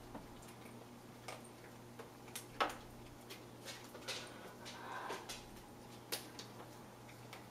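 Scattered light clicks and taps of a hollow plastic toy being batted and bitten by kittens on foam floor mats, the sharpest tap about two and a half seconds in, over a faint steady hum.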